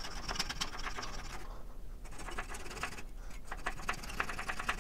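Rapid scratchy strokes and clicks of hand work trimming glued wooden plugs flush on a pine table frame, growing quicker and more regular near the end.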